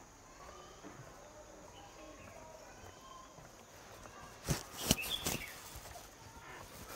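Faint outdoor background with a few short knocks and clicks about four and a half to five and a half seconds in.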